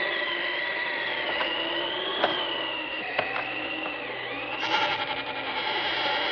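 Eerie sound effect from a vinyl Halloween record: a high wavering whine that glides up and down over a steady held tone. Two sharp clicks come about a second apart, near the middle.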